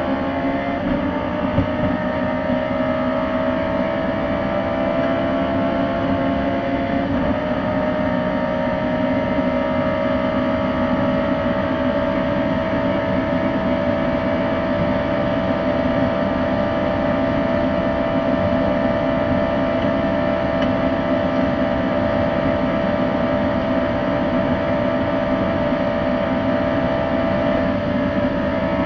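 Audi R8 race car's V10 engine at full throttle, heard from inside the cockpit, pulling hard through the upper gears at over 200 km/h. The note is steady and slowly rising in pitch, with a brief change about seven seconds in, over a constant rush of road and wind noise.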